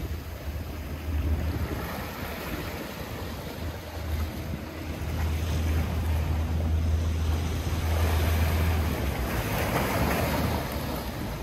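Wind buffeting the microphone in a low rumble over the wash of choppy sea water, growing louder about halfway through.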